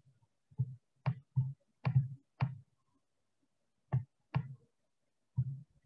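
Pen or stylus clicking against a tablet while writing by hand: about eight short, sharp clicks at an uneven pace, with a pause of over a second in the middle.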